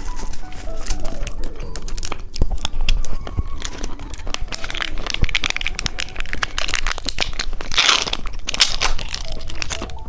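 Plastic candy wrapper crinkling and crunching close to the microphone, a dense run of small crackles with a louder rustle about eight seconds in.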